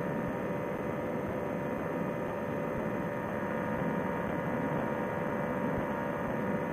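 Paramotor trike engine and propeller running steadily in flight, heard through a Bluetooth headset: a constant drone with a few held tones over a hissing rush.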